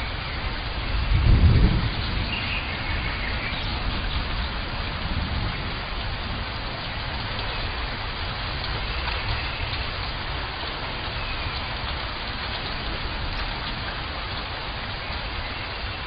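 Steady rain falling in a rainforest, an even hiss with a low rumble of thunder swelling and fading about a second and a half in.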